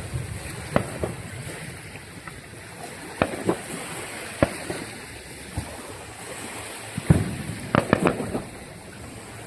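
Distant fireworks going off: scattered sharp pops and bangs, a quick cluster of them near the end, over a steady rush of lakeshore surf and wind.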